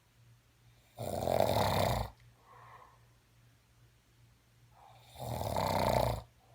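Snoring in sleep: two long snores about four seconds apart, each followed by a softer breath.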